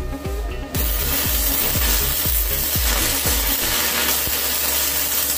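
Stick-welding arc from a small inverter welding machine, crackling and sizzling steadily as the electrode burns. The arc catches about a second in and then holds.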